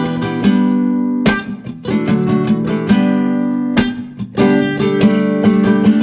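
Background music: acoustic guitar strumming and picking sustained chords, with two hard strums about a second in and near four seconds in.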